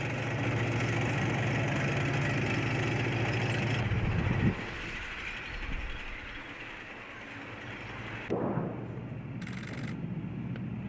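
A steady engine-like drone with an even low pulse, ending with a sudden thump about four seconds in. Quieter background noise follows, with two short louder sounds near the end.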